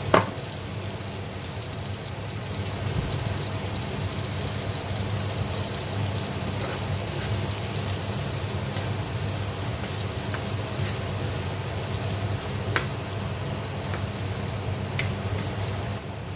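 Green beans frying in a pan with soy sauce and vinegar, a steady sizzle. A sharp knock right at the start is the loudest sound, with two fainter clicks near the end.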